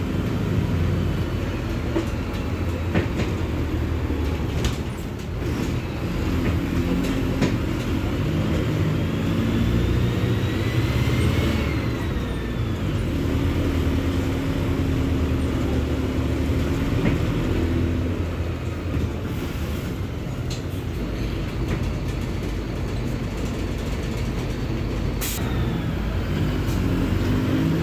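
Mercedes-Benz OF-1721 bus's diesel engine running steadily with its engine speed shifting up and down. About ten seconds in, a faint whine rises and then falls.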